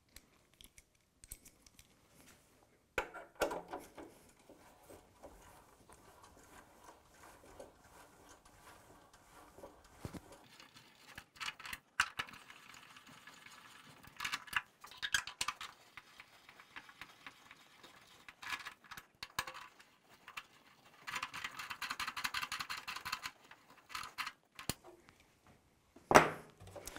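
Hand ratchet clicking in short runs as self-tapping screws are driven into a plastic tray, with scattered knocks and clatter of parts between runs; the longest run comes late.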